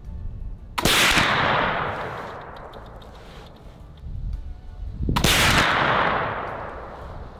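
Two loud gunshots about four seconds apart, each followed by an echo fading over a couple of seconds. The second is a .36 caliber flintlock squirrel rifle, built from a Kibler Southern Mountain Rifle kit, firing a 30-grain black powder load.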